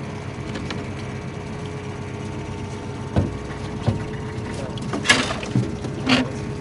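Boat motor running steadily at trolling speed, a low hum with a faint steady tone over it. In the second half come five short knocks and clatters, the loudest about five seconds in.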